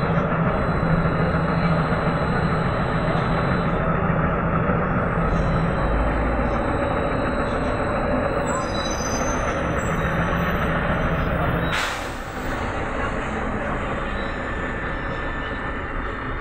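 Cabin noise inside a moving Trolza-5275.06 Optima trolleybus: a steady running din with a low hum and some high whining tones about nine seconds in. A sharp click comes about twelve seconds in, after which the hum stops and the cabin is a little quieter.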